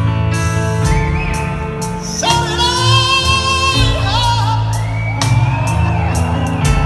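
Live band playing a slow pop-rock ballad: sustained chords and bass over regular drum hits. In the middle come two long, wordless sung wails that bend in pitch.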